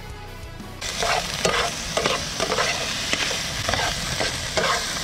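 Chopped seafood sizzling in hot oil in a nonstick frying pan, with metal tongs scraping and tapping the pan about twice a second as it is stirred. The sizzle starts suddenly just under a second in, after a moment of guitar-and-drum music.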